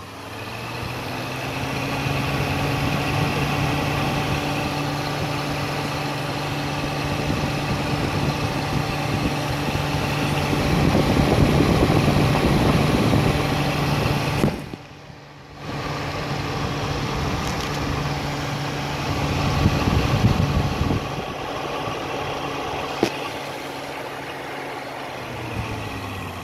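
Car radiator cooling fan's electric motor, run straight off a 12-volt battery, spinning up and humming steadily with a rush of air. It drops out for about a second a little past halfway, then runs on and winds down near the end.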